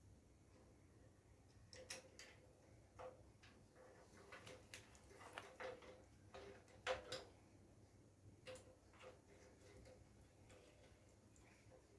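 Faint, irregular clicks and light knocks of small parts and tools being handled while a water heater is reassembled.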